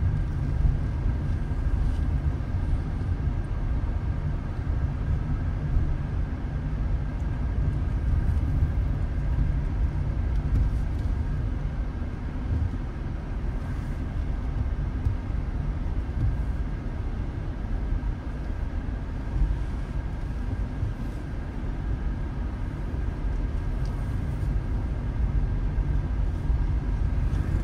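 Car driving along a road: a steady low rumble of engine and tyre noise with no changes.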